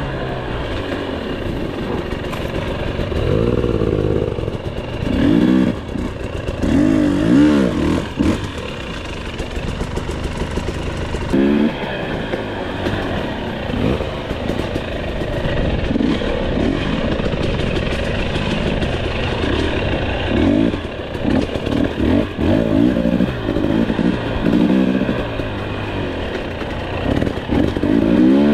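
Dirt bike engine revving up and down over and over as the bike is ridden along a trail, with scattered knocks and rattles in between.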